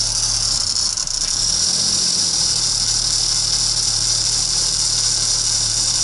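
Old Volvo's engine idling, with a steady high-pitched whirr and a low hum running evenly throughout.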